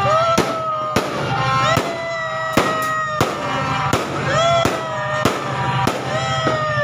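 Aerial fireworks going off in a rapid series of sharp bangs, about one every half second to second, with music playing.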